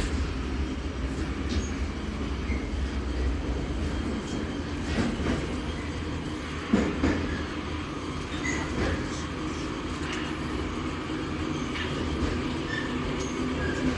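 Interior of an 81-717.5M metro car running between stations: a steady rumble of wheels and running gear, with one sharp knock a little before halfway through, the loudest sound.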